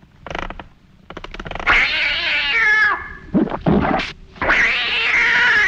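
Cat yowling loudly in two long cries, the first bending down in pitch at its end, as a rocking chair's runner comes down on it.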